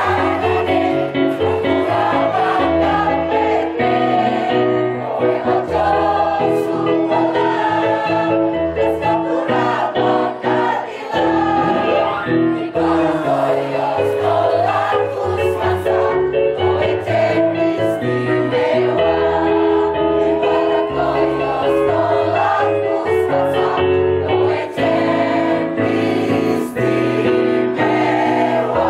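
A mixed choir of men and women singing a song together.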